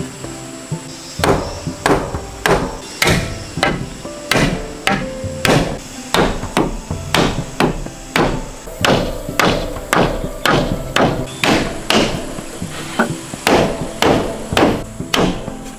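Hammer knocking the mortise-and-tenon joints of a wooden frame together: a steady run of sharp wooden knocks, a little under two a second, starting about a second in. Soft background music underneath.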